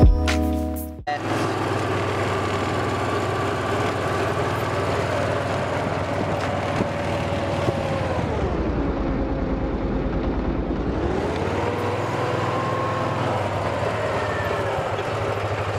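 A vehicle engine running steadily. Its pitch drops about halfway through and rises back a few seconds later, as it slows and then picks up speed again.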